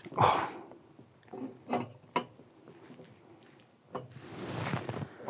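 A turbocharger being fitted by hand onto its stainless exhaust tube: a few light, sharp clicks of metal parts touching, with soft handling noise between them.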